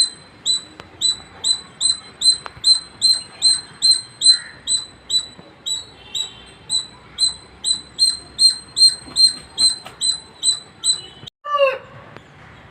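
A squirrel calling: a long run of short, high, evenly spaced chirps, about three a second, each dropping slightly in pitch. The run stops abruptly about eleven seconds in and is followed by one short falling squeak.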